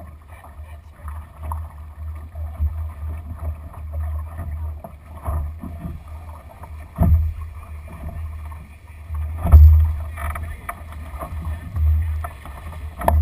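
Wind buffeting the microphone of a deck-mounted action camera aboard a sailing dinghy: a low, gusty rumble with a couple of dull thumps, the loudest about nine and a half seconds in.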